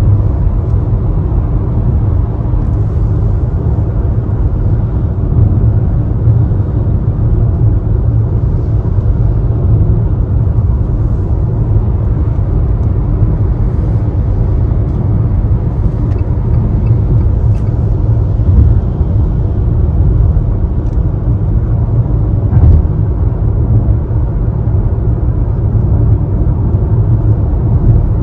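Steady low rumble of a car's tyres and engine at motorway speed on a wet road, heard inside the cabin. A soft knock comes about two thirds of the way through.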